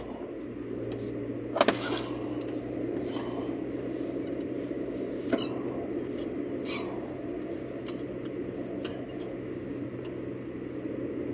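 Car interior while driving: steady road and engine noise with a constant low hum, broken by a few sharp clicks, the loudest about one and a half seconds in and smaller ones in the middle and near the end.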